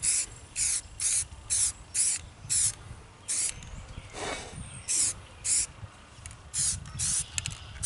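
Rust-Oleum aerosol spray paint can spraying in about a dozen short, separate hissing bursts, a fraction of a second each, as paint is dabbed onto a bare spot on a steel wheel rim.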